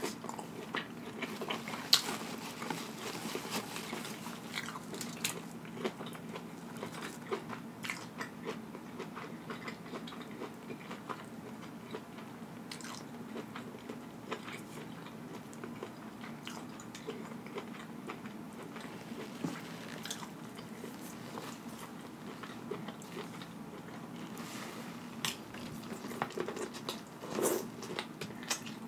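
Close-miked chewing and wet mouth sounds of someone eating sauce-covered seafood-boil food: soft squelches and many small scattered clicks. Near the end there is a louder bite into a cob of corn.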